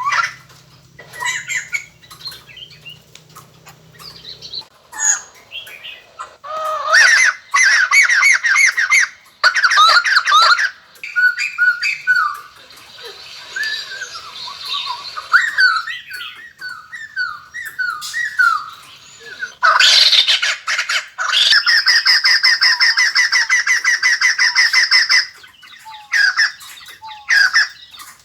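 White-crested laughingthrush calling in loud bouts of rapid, repeated squawking and chattering notes. The longest unbroken run of chatter comes about two-thirds of the way through.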